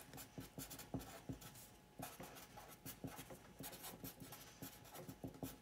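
Felt-tip marker writing on paper: a run of faint, quick scratchy strokes as words are written out, with a brief pause about two seconds in.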